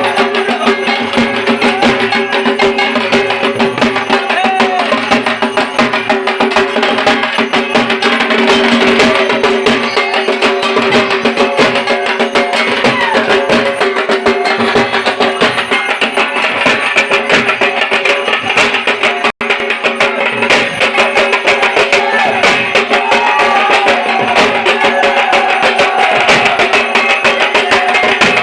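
Dhak drums played in a fast, dense stream of stick strokes, with a steady drum tone under it. The sound cuts out for an instant about two-thirds of the way through.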